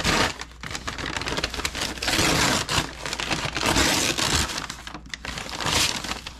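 Fries being shaken in a paper bag with seasoning: the bag crinkles and rustles in several bursts.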